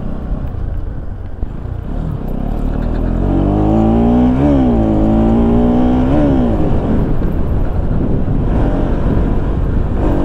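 Motorcycle ridden over a rough, slippery dirt road: a steady low engine and road rumble, with a pitched drone that rises and falls a couple of times through the middle few seconds.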